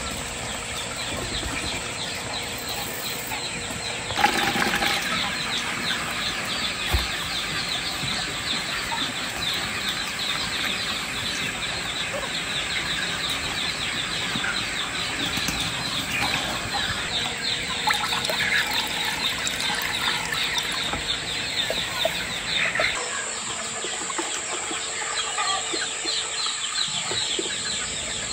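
A crowd of chicks peeping together in a dense, continuous chorus of high chirps, getting louder about four seconds in.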